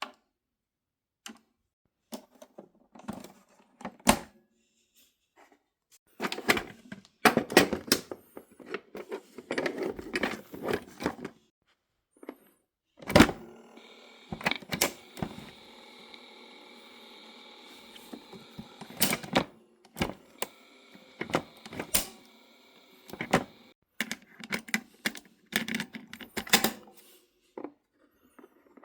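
Mechanical clicks, knocks and handling noises from a cassette recorder being worked on by hand. A steady hum with several tones runs for about five seconds in the middle.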